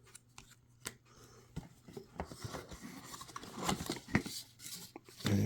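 Trading cards in plastic sleeves being handled and slid about: a light rubbing hiss with scattered small clicks and ticks, busiest in the middle.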